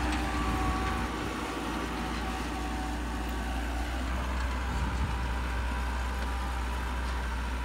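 Massey Ferguson 385 tractor's four-cylinder diesel engine running steadily at about 1800 rpm under load, pulling a tined cultivator in first gear. The engine note fades somewhat as the tractor moves away.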